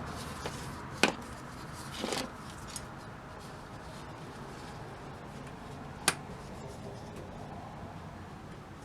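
Handling noise from working on a tube radio: three sharp clicks, the first about a second in, another with a short scrape about two seconds in, and one more near the middle, over a faint steady hum.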